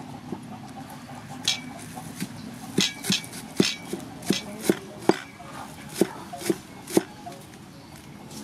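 Cleaver chopping green onions on a thick wooden chopping block: about a dozen sharp knocks, roughly two a second at an uneven pace, starting about a second and a half in.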